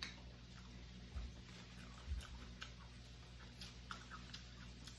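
Faint, scattered clicks and ticks of fingers handling sea snail shells on a plate and a paper napkin, with two soft low thumps about one and two seconds in.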